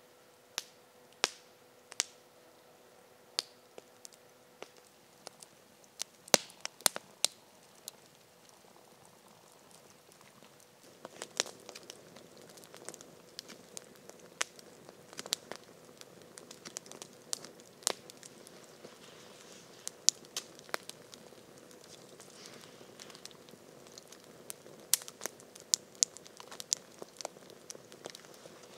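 Wood campfire crackling and popping with sharp, irregular snaps. The snaps are sparse at first, then come thicker over the low hiss of the burning fire from about eleven seconds in.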